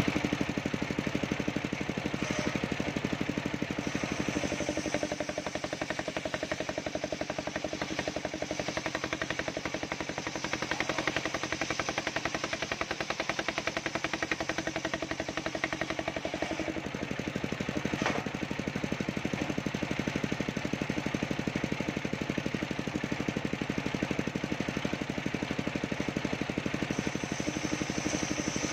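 Large table-mounted circular saw ripping a waru (sea hibiscus) log lengthwise into battens, running steadily with a motor's drone and a rapid fine pulsing beneath. The hum changes note a few seconds in and again about two-thirds of the way through.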